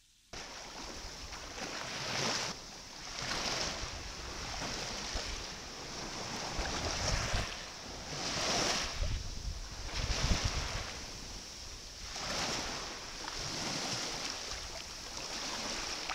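Small waves washing in at the shore, the surf swelling and fading every second or two, with some wind rumbling on the microphone around the middle.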